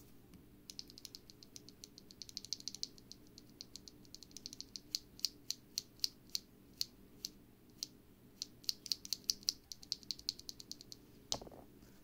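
A single loose Gateron Pro Glory Red linear switch (POK stem, nylon housing) pressed and released by hand over and over, its stem clacking at the bottom and top of each stroke, in quick runs of rapid presses and in slower single presses, as a test for spring ping. A louder knock near the end.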